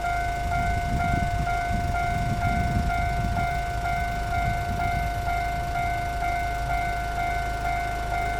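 Electronic level-crossing warning bell sounding a steady pulsing tone, about two or three beats a second, over the low rumble of a TRA push-pull Tze-Chiang express train passing over the crossing.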